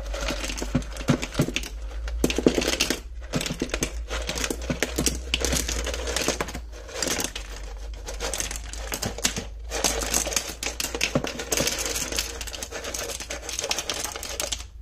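Rapid, irregular clattering and crinkling of aquarium substrate materials (stones, sand and plastic) being handled and placed, broken by brief pauses about three, six and a half and nine and a half seconds in. A steady low hum runs underneath.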